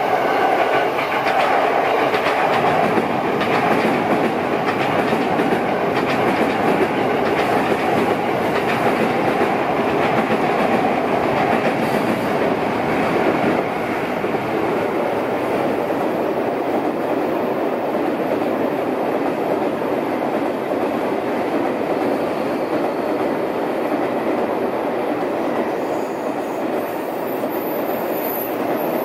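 Trains running past on a multi-track line: a JR commuter train, then a long N700-series Shinkansen, giving a steady rumble of wheels on rails that eases slightly about halfway through. A faint high-pitched squeal comes in near the end.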